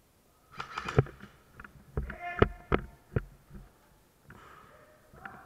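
Airsoft gunfire in an indoor arena: about five sharp cracks between about one and three seconds in, from shots and BBs striking plywood barricades.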